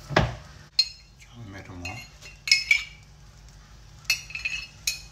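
A metal spoon clinking against a glass jar: a few sharp, ringing clinks about two and a half seconds in and a quicker run of them near the end. A dull thump comes near the start.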